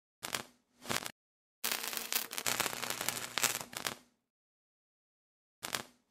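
Bursts of crackling static: two short bursts, then a longer crackling stretch of a couple of seconds, then one more short burst near the end, with dead silence between them.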